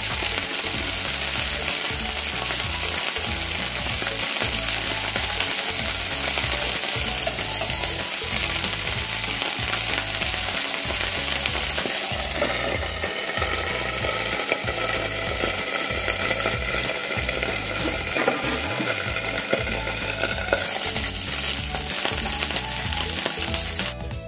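Canned sardines sizzling steadily as they fry in shallow hot oil in a non-stick pan.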